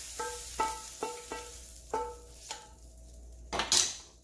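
A spatula knocks and scrapes shrimp out of a nonstick frying pan, about seven quick knocks, and the pan rings with a short tone at each one. A faint sizzle fades away underneath. A louder brief scrape or clatter comes near the end.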